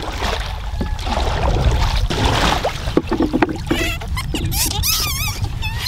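Wind and water noise around a wooden canoe with a few sharp knocks, then from about halfway in a string of high, wavering animal cries, repeated several times.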